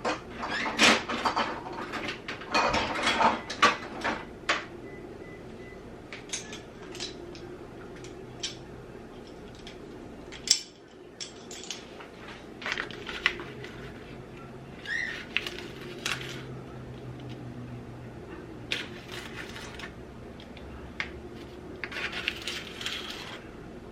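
Metal kitchen utensils clattering as a measuring spoon is fetched, a dense run of clinks and rattles in the first few seconds, then scattered light clicks and taps.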